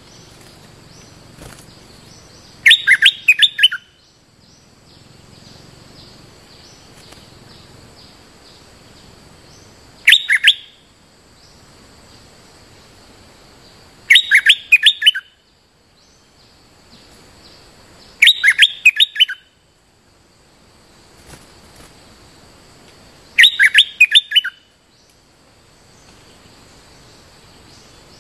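Bulbul giving a short, loud burst of quick chattering song notes, repeated five times about every four to five seconds. A faint steady high hum sits between the phrases.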